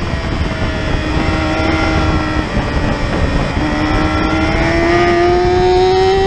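Yamaha R6 600 cc inline-four sport-bike engine running at high revs, under a heavy rush of wind and road noise. About halfway through the engine note dips briefly, then the revs climb steadily to the end under acceleration.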